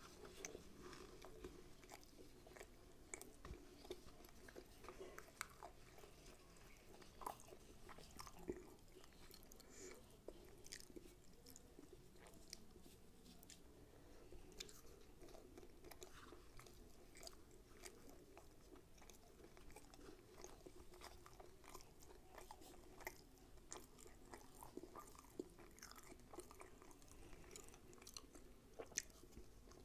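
Faint chewing of rumali roti with mutton tikia, with short soft mouth clicks scattered throughout.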